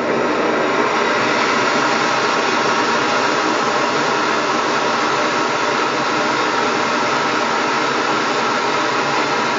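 Primus MFS multi-fuel stove burner running on propane with its control valve turned all the way up, the gas flame giving a steady, even rushing noise. The LP gas adapter feeding it is set to its lowest setting, and the small 0.35 mm jet limits the output.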